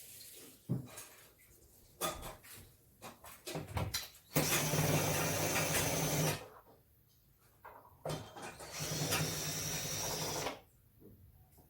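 Small power-tool motor running in two bursts of about two seconds each, with scattered clicks and knocks between.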